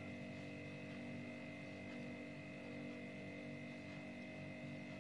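Faint, steady background hum with a few constant tones, like room tone with electrical whine; nothing else happens.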